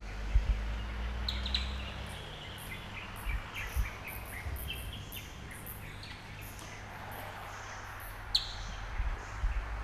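Outdoor ambience of birds chirping and calling over a steady low rumble, with a few brief low thumps and one sharp click near the end.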